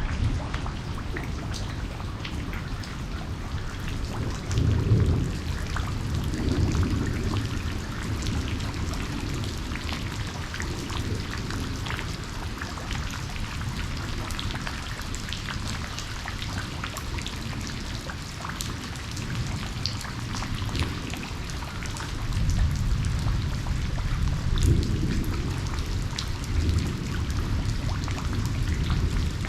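Steady rain falling, with many single drops striking close by. Low thunder rumbles twice: a short rumble about five seconds in, and a longer one from about twenty-two seconds that rolls on for several seconds.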